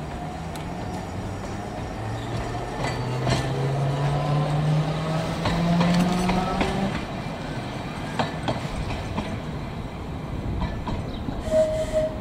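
Single-deck narrow-gauge electric tram pulling away, its motor whine rising in pitch over several seconds as it gathers speed, with wheels clicking on the track. A brief high-pitched tone sounds near the end.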